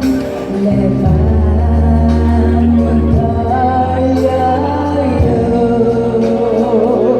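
Live pop music through stadium loudspeakers: long held bass notes under chords, with a wavering sung melodic line.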